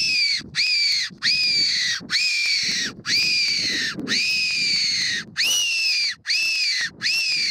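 Stainless-steel Tenterfield-type fox whistle (the SS "spit whistle") blown in a string of loud, piercing squeals. There are about nine in a row, each sliding down in pitch, with short breaks between them: a fox call imitating an animal in distress.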